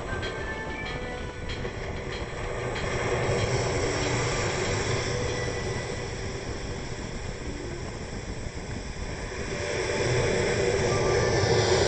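Storm waves breaking on the shore under gusty wind, a steady rush of surf that swells about three seconds in and again near the end.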